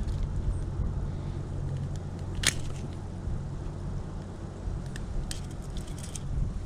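Low rumble of wind on the microphone, with one sharp click about two and a half seconds in and a few more clicks near the end.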